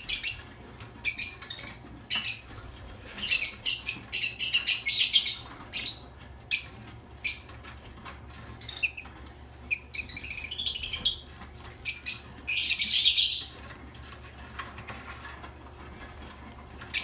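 Caged lovebirds chirping and chattering in short, high-pitched bursts, with a few flurries of wing flapping as the pair scuffle on the perch. The longest burst comes a little before the end.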